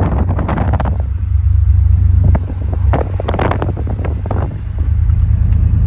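Steady low rumble with gusts of wind buffeting the microphone, the gusts coming just after the start and again from a little past two seconds to about four and a half seconds.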